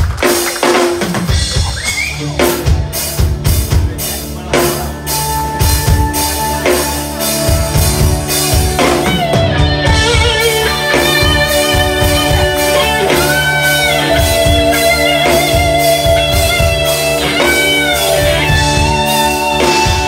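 Live rock band playing through a PA: a drum kit and bass keep a steady beat, and about nine seconds in a sustained melodic lead with wavering, vibrato notes comes in over them, with no singing.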